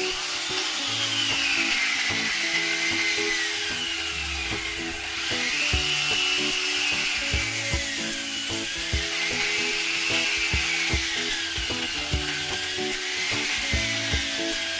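A saw cutting through wood, a rasping sound that rises and falls in pitch in slow swells every two to three seconds. Background music with a steady beat plays under it.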